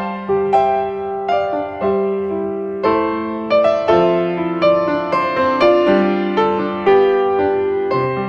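An iPhone ringtone playing: a melody of electric-piano notes over held lower notes, a new note about every half second.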